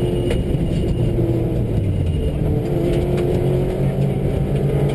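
Subaru rally car's engine running hard at stage speed on a gravel forest road, heard from inside the car, with tyre and gravel rumble and a couple of sharp knocks from the rough road. The sound is two passes of the same car laid together, one in each ear.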